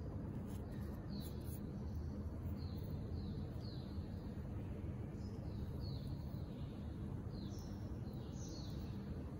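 A small bird chirping repeatedly outdoors, short falling chirps a little over one a second, over a steady low background rumble.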